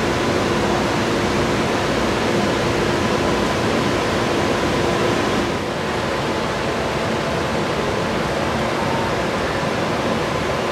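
Steady rushing background noise with faint steady hums, dipping briefly about five and a half seconds in.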